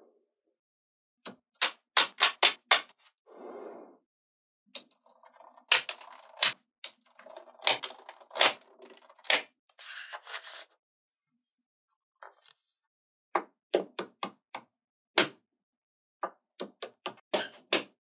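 Small magnetic balls snapping onto one another with sharp clicks, some single and some in quick runs of three to five, between stretches of softer rustling as balls are shifted against each other.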